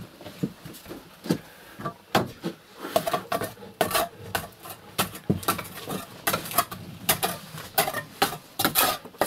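Debris being raked out by hand through an opening in a brick stove's flue: irregular scraping and clinking of brick fragments and grit, growing busier about two seconds in.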